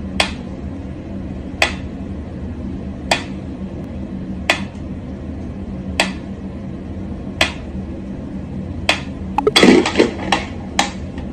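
Mechanical pendulum metronome ticking slowly, one sharp click about every one and a half seconds, over a steady low hum. Near the end a burst of louder knocks and clatter breaks in as a cat bats at the metronome.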